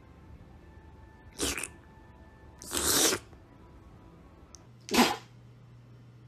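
Three short, sharp sneezes, about a second and a half in, around three seconds in, and about five seconds in; the last is the loudest.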